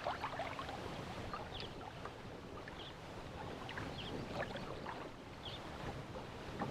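Water lapping and sloshing against a kayak hull, a steady low wash, with a few faint short high chirps or clicks scattered through it.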